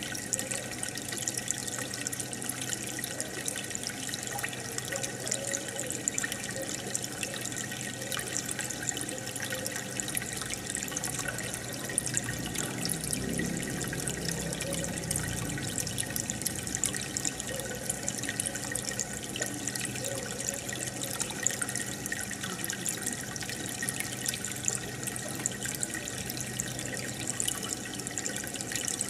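Aquarium water bubbling and trickling steadily from the air bubbler, a dense run of small pops and splashes, with a faint low hum underneath.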